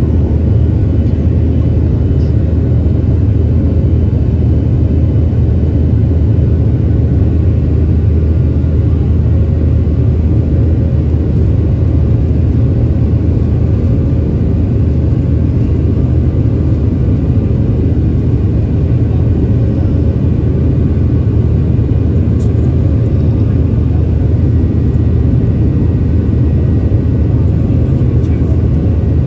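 Steady low drone of a jet airliner heard from inside the passenger cabin: engine and airflow noise, even and unbroken.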